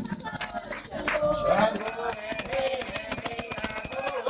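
A small bell rung continuously, its ringing growing fuller about two seconds in, while voices sing a chant alongside it.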